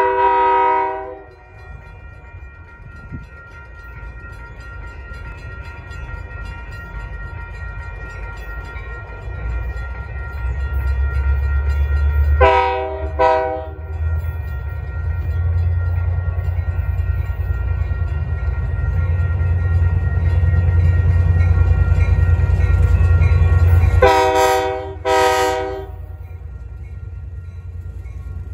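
Union Pacific diesel locomotive approaching. Its air horn sounds one blast at the start, two short blasts about halfway, and two more near the end, over a low engine rumble that grows louder as it nears.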